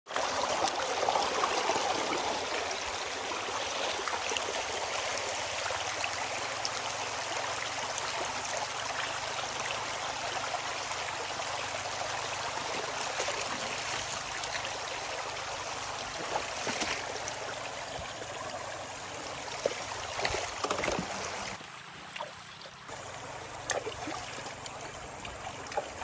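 Shallow river water sloshing and rushing as a wide gold pan is swirled through it, with a few short splashes. The water noise drops quieter for a moment near the end.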